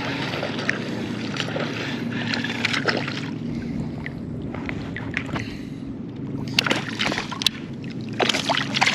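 Shallow bay water sloshing and splashing around a wading angler, with wind on the microphone and a low steady hum underneath; sharp clicks and splashes come more often in the last few seconds.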